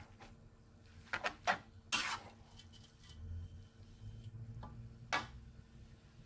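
Metal spatula knocking and scraping against a wok while tossing soaked rice vermicelli. A cluster of sharp knocks comes between about one and two seconds in, and one more about five seconds in.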